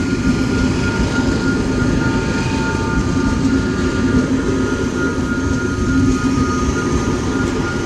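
Alstom Comeng electric suburban train passing slowly through the level crossing, a steady low rumble with a steady higher tone held over it.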